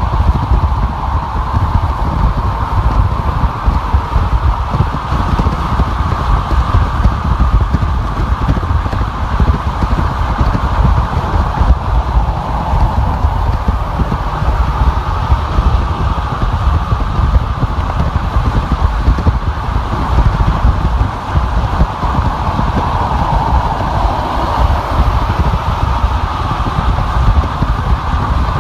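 A car driving at freeway speed: steady road and tyre noise with a deep rumble and no breaks.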